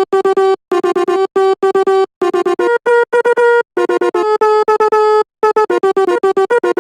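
Sampled Basuri telolet bus horn, the Indonesian multi-tone air horn, playing a tune in FL Studio Mobile: quick runs of short staccato honks at several pitches, with a few longer held notes about two-thirds of the way through.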